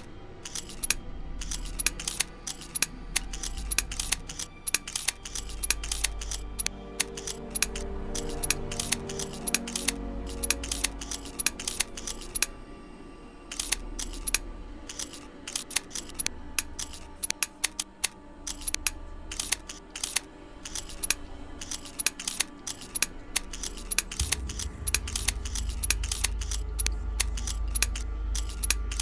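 Rapid, irregular typing clicks, a keystroke sound effect that keeps pace with text being typed out, over soft background music. The clicks stop for about a second around the middle, and a low hum grows louder near the end.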